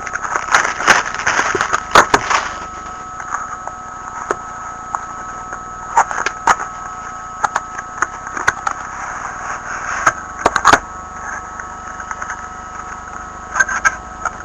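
A factory-sealed trading-card box being unwrapped and opened: plastic shrink-wrap crinkling and cardboard being handled, with a flurry of rustling in the first two seconds, then scattered crackles and clicks. A faint steady high tone runs underneath.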